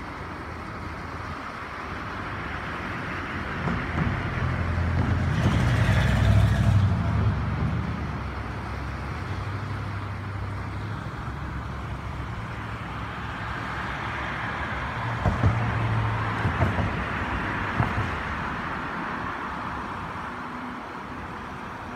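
Swollen river water rushing steadily over a low mill dam. Two louder low rumbles swell and fade, one about six seconds in and another from about fifteen to eighteen seconds that carries a few short knocks.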